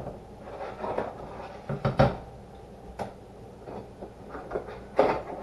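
Kitchen handling sounds: a few separate knocks and clatters of cookware and utensils being moved, with the sharpest about two, three and five seconds in.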